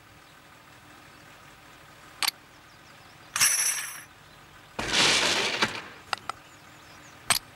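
Metal hose couplings clicking and clinking as lengths of fire suction hose are joined and connected to a fire engine's pump inlet. There is a click, then a short ringing clink, then a louder clanking scrape about five seconds in, and a few sharp clicks near the end.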